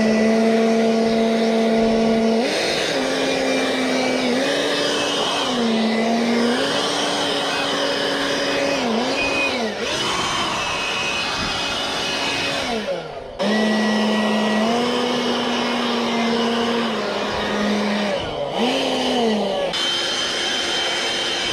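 Handheld electric blower running, blowing water off a car's paint: a steady motor whine over rushing air, its pitch stepping up and down as the speed changes. About thirteen seconds in the motor winds down almost to a stop, then spins back up.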